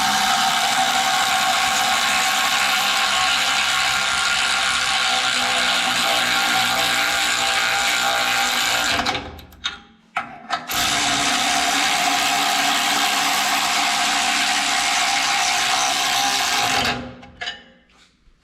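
A power tool spinning jam nuts down threaded rod, running steadily with a constant whine. It runs for about nine seconds, stops with a couple of short trigger blips, then runs again for about six seconds and winds down near the end.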